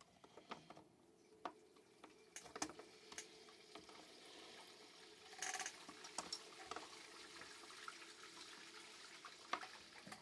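Faint scattered clicks, taps and scrapes of plastic chainsaw parts being handled and pushed together as the top handle and cover are fitted, with a short louder scrape a little past halfway.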